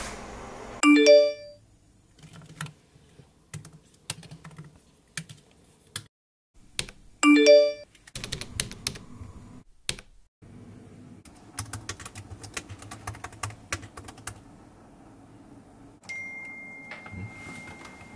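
Two short chat-message notification chimes about six seconds apart, the loudest sounds, with typing clicks on a laptop keyboard between and after them, heaviest in a quick run near the end.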